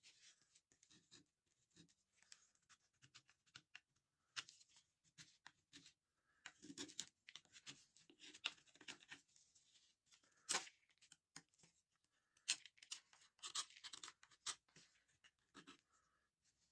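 Hand-held karambit with a saw-blade steel blade shaving and whittling hard wood: faint, irregular scraping cuts and small clicks in short spells, the sharpest one about ten and a half seconds in.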